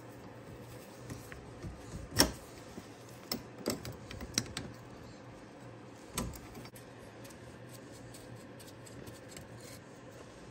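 Wrench and locking pliers clicking and knocking against steel brake line fitting nuts as they are worked loose. One sharp click about two seconds in is the loudest, a few more follow over the next two seconds, and one comes about six seconds in, then only faint handling noise.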